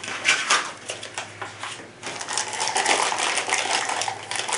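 Clear plastic wrapping crinkling as it is handled. A few light clicks come in the first two seconds, then a dense, continuous crackle from about halfway through.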